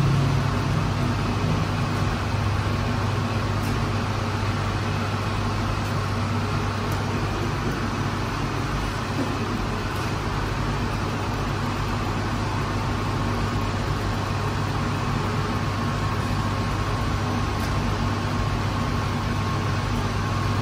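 Steady low machine hum over a constant rushing noise, with a faint high steady tone joining a little past halfway.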